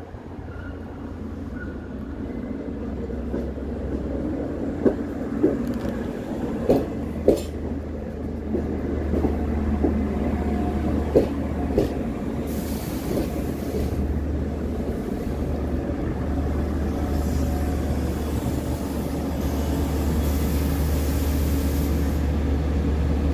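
Long Island Rail Road C3 bilevel push-pull train arriving along the platform: a low rumble that builds as the cars roll past, with a string of sharp wheel clacks over the rail joints in the middle and two bursts of hiss in the second half.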